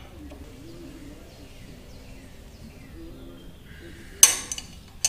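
A hand wrench clanking sharply once against metal, with a short ring, about four seconds in, while tightening the lock nut on a Harley-Davidson Sportster's primary chain adjuster. Before that there is only a faint low background.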